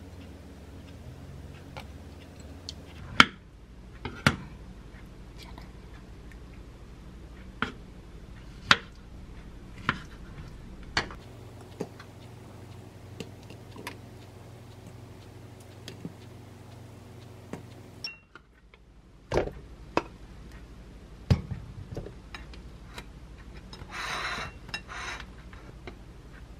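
Kitchen food-prep sounds: a table knife scraping as it spreads yogurt on a bagel, then sharp knocks of a knife on a wooden cutting board and taps as fig pieces are set down on a ceramic plate, roughly one every second or two. A brief scraping rustle near the end.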